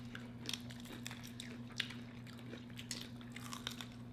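Close-miked chewing and biting of fried chicken, with scattered small crunches and wet mouth clicks. A faint steady hum runs underneath.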